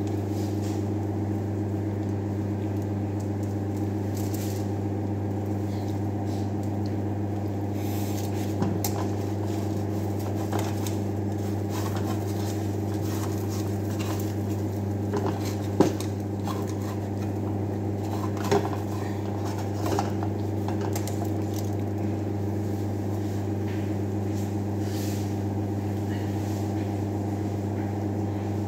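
Steady hum of a kitchen extractor hood fan, with scattered light clicks and knocks of a spatula against a frying pan; one sharper knock a little past the middle.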